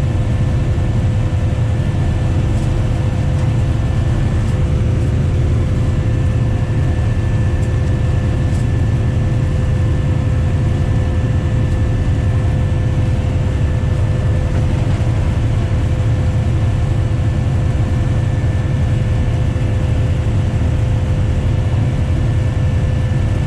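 Diesel train running steadily, heard from the driver's cab: a constant low engine rumble with a steady thin whine over it.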